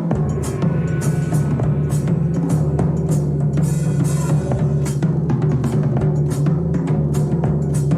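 Band music led by a drum kit playing a busy, regular beat over an electric bass line.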